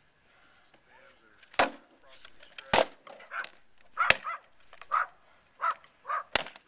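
Wooden practice swords striking a shield and armour in armoured sparring: a string of about eight blows at irregular intervals, four of them sharp, loud cracks and the rest duller knocks.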